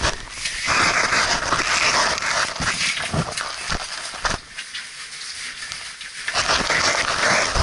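Close rustling and scraping of clothing and the camera against rock in noisy bursts, with scattered knocks, as a caver crawls through a tight cave passage. There is a quieter lull about halfway through.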